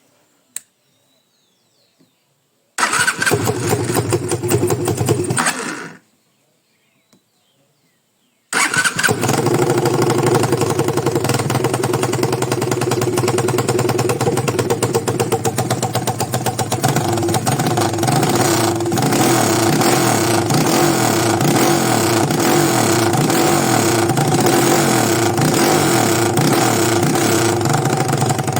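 200cc motorcycle engine started after a valve repair: it runs for about three seconds and cuts out, then is started again a few seconds later and settles into a steady idle, which the mechanic takes for the problem solved.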